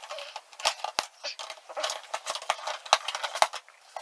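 Cardboard and plastic toy packaging being handled and rustled, with irregular sharp clicks and knocks.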